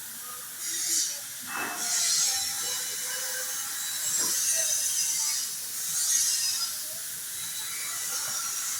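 Truck repair work: several short bursts of hissing, each about a second long, mixed with metallic clatter and a knock early on.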